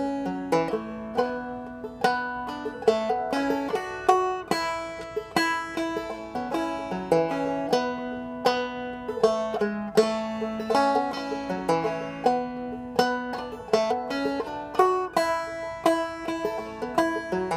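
Solo banjo played clawhammer style, picking a fiddle tune at a slow, even tempo: a steady stream of plucked notes, each struck sharply and left to ring.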